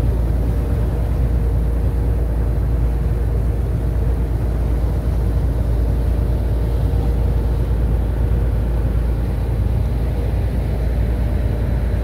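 A ferry's engine running with a steady low drone, with the wake churning and rushing alongside the hull.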